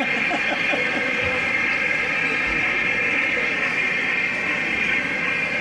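Steady background hubbub of a busy exhibition hall, with indistinct crowd chatter.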